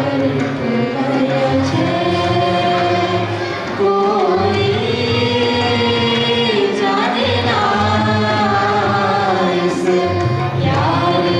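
A devotional bhajan sung into microphones by a woman and a man, with long held, gliding notes.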